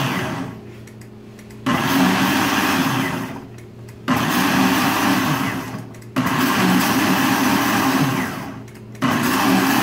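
Countertop blender run in short pulses, puréeing a liquid mandarin-and-onion dressing: the motor starts abruptly four times, each burst lasting about two seconds before winding down into a brief quieter gap.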